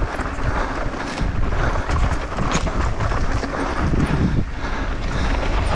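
Downhill mountain bike descending fast on a loose, dusty trail: wind rushing over the microphone, tyres running through dirt, and the bike rattling with frequent sharp clacks.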